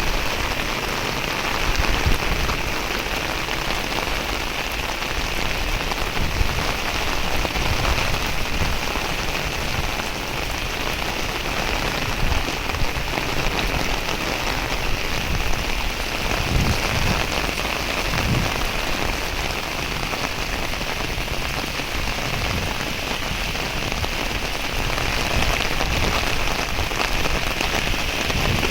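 Heavy rain falling steadily, a dense even hiss of drops hitting surfaces, with a few brief low rumbles about two-thirds of the way through.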